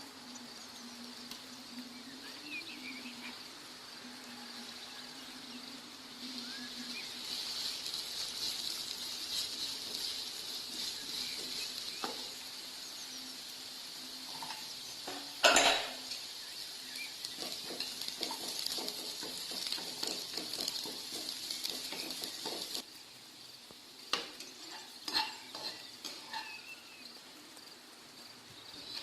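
Food sizzling in a pan while a spoon stirs it, with a loud clank of utensil on pan about halfway through. The sizzle cuts off suddenly, then a few light utensil taps follow.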